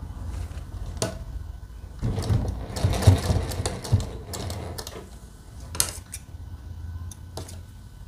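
A DIYA sewing machine stitching, loudest for a couple of seconds near the middle, with a few sharp clicks around it. It is putting a short, light tacking stitch through a cord loop and its fabric strip.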